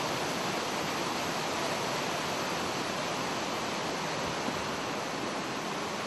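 Mountain stream rushing over rocks: a steady, unbroken rush of white water.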